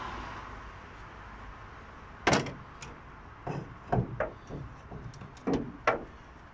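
Sharp metal clunks and knocks as a car bonnet and its hinge are handled and worked into position, about seven in all, the loudest a little over two seconds in.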